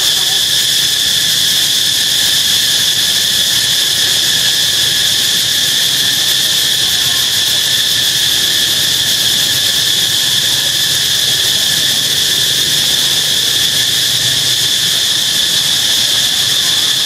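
Insect chorus: a loud, steady, high-pitched drone with no break.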